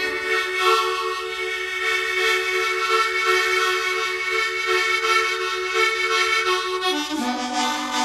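Harmonica playing long held chords that pulse rhythmically, sliding down to a lower chord about seven seconds in.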